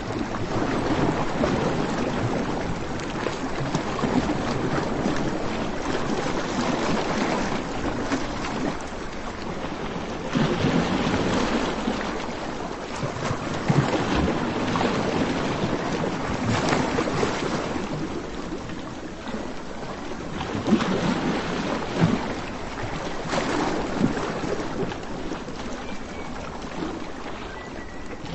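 Sea surf and wind: a steady rushing noise that swells and eases every few seconds, with gusts buffeting the microphone and a few brief thumps.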